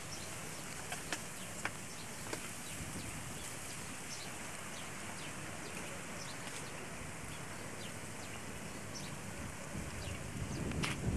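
Outdoor ambience: a steady hiss with scattered short high chirps from small birds, and a few faint clicks in the first couple of seconds. Near the end, wind starts buffeting the microphone.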